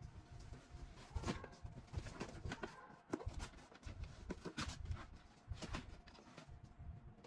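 Irregular light clicks and knocks of computer parts being handled and fitted during a PC build, over a low rumble.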